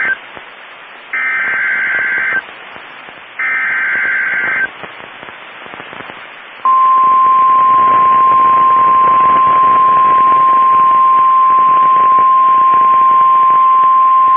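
NOAA Weather Radio Emergency Alert System activation heard through a weather radio receiver with steady static hiss. The end of one SAME header data burst is followed by two more short, buzzy data bursts about a second apart, then a pause, and about halfway through the long, steady single-pitched warning alarm tone begins. The sequence signals that a new warning, here a severe thunderstorm warning, is about to be read.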